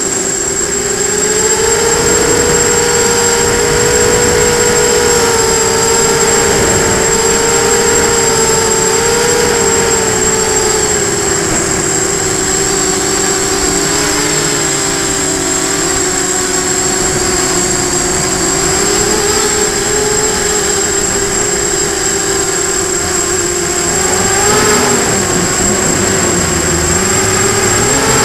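Hexacopter's electric motors and propellers whining steadily in flight, recorded on board, the pitch wavering up and down with the throttle and briefly rising near the end. A thin, steady high-pitched tone runs underneath.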